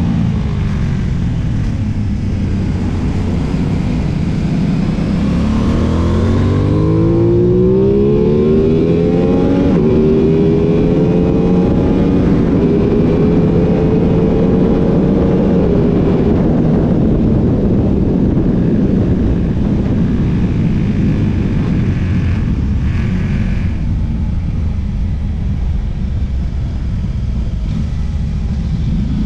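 Aprilia Tuono 660's parallel-twin engine heard from onboard at speed, revving up hard about a quarter of the way in, holding high, then easing off to a lower, rougher running for the rest.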